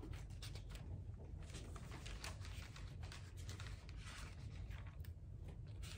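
Faint rustling of thin paper as Bible pages are leafed through, many short soft strokes over a low steady room hum.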